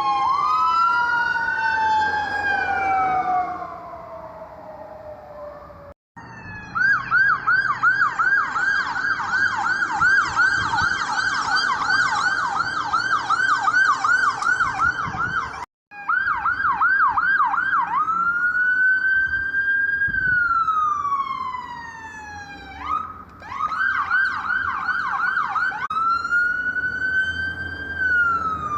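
Emergency vehicle electronic sirens. Two wails overlap, sliding up and down in pitch. After an abrupt cut comes a fast yelp of about three cycles a second, and after another cut a siren switches back and forth between yelp and a slow rising-and-falling wail.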